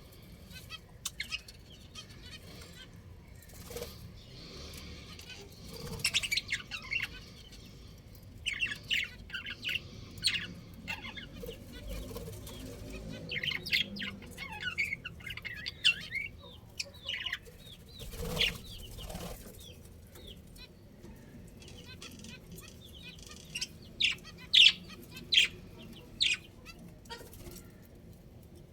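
Budgerigars chirping: short high chirps coming in scattered clusters, the loudest ones near the end.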